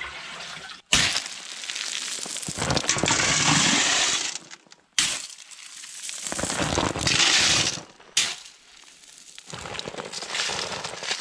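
Concrete mixer drum churning crushed stone, sand and water: a gritty, crackling rattle of tumbling stone, heard in four short takes that break off abruptly.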